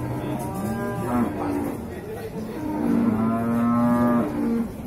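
A bull mooing twice: a shorter moo at the start, then a longer, steady-pitched one from about the middle to near the end.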